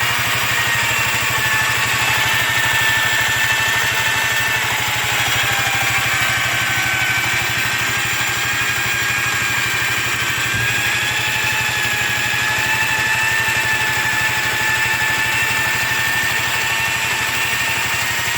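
A 1992 Yamaha Riva 125 XC scooter's engine running steadily with a high whine held over the engine note. This is the weird noise the owner says gets worse with throttle and suspects comes from worn variator weights. A single brief knock sounds about ten seconds in.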